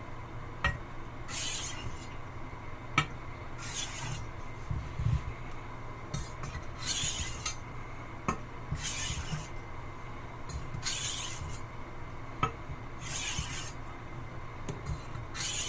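Wüsthof Classic chef's knife blade stroked slowly across a 1000-grit water stone, a scraping rasp about every two seconds, with a light click now and then as the blade is set down on the stone.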